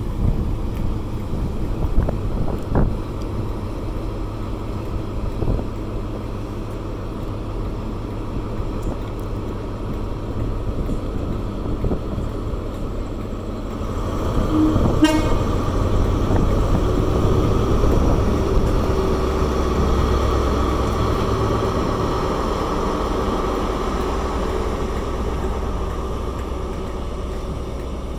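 Class 43 HST diesel power car idling, then opening up about 14 seconds in as the train pulls away, with a short horn toot just after; the engine's rumble and the passing train carry on.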